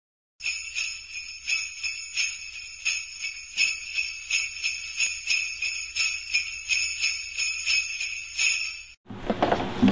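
Sleigh bells shaken in a steady rhythm, about three shakes a second, stopping suddenly near the end.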